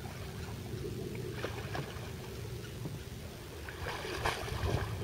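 Kayak paddle strokes splashing in river water, a few splashes about a second and a half in and a longer run of them near the end, over a steady low rumble.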